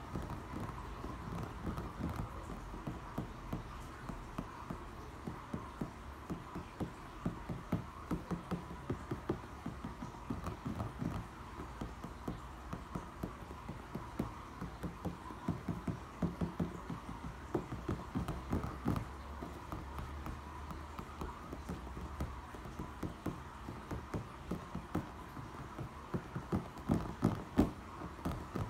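Fingertips tapping quickly on a pool brick, in uneven runs of many light taps with short pauses between them.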